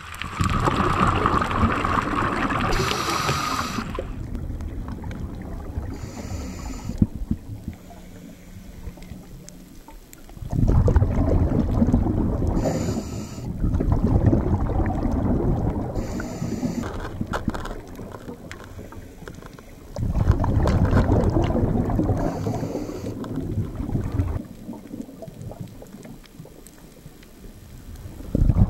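Rushing, rumbling water noise that comes back abruptly about every ten seconds, fading in between.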